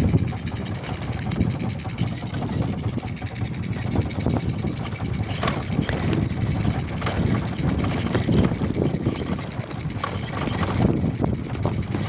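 Motorcycle engine running as the bike is ridden fast over a rough grassy dirt trail, with irregular knocks and rattles from the bumpy ground.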